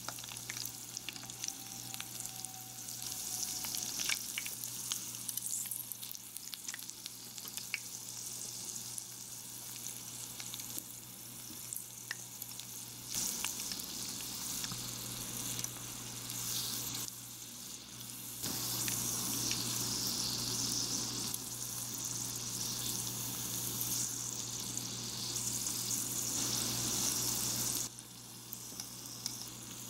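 Breaded pork cutlet deep-frying in a tiny pot of oil: a steady sizzle, with occasional light clicks of metal tweezers early on. The sizzle is louder through much of the second half and falls back shortly before the end.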